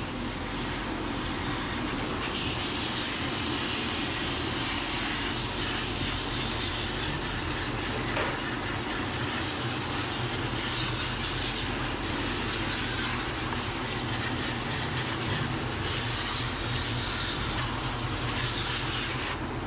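Steady hiss of soapy water spraying continuously from a bathing-system car-wash nozzle onto a small dog and the stainless steel tub.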